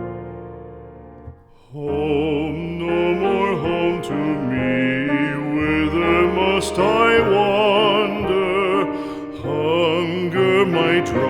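A piano chord rings and dies away, then about two seconds in a classically trained voice begins singing with strong vibrato over piano accompaniment.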